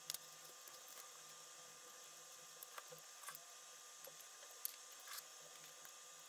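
Faint handling of plastic toy parts: a few scattered clicks and light taps of the duck toy's hollow plastic shell pieces, over a steady low hiss. The sharpest click comes right at the start, another about four and a half seconds in.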